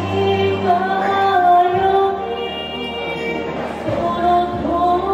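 A woman singing into a microphone over backing music, with long held notes.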